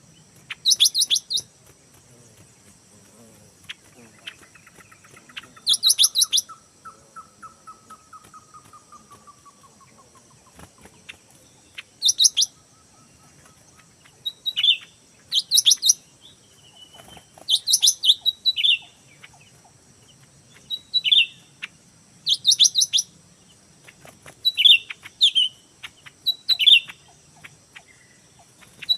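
Birds calling: clusters of sharp, high chirps every two to three seconds, with short falling whistled notes in between. A steady high insect whine runs underneath.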